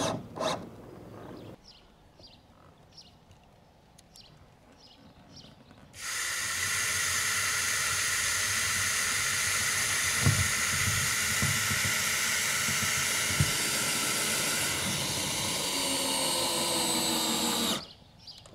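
Cordless drill driving a long self-drilling roofing screw with a sealing washer through the crest of a steel sandwich roof panel. The motor runs steadily for about twelve seconds with a few low knocks midway. Its pitch sags near the end as the screw pulls down, then it stops.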